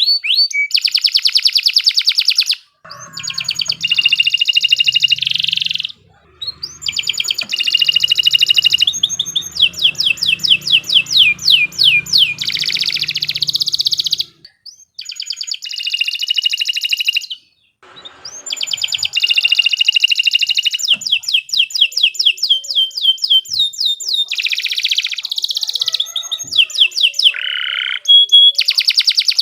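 Domestic canary singing long, rapid phrases of rolling trills and quick repeated chirp notes, broken by brief pauses.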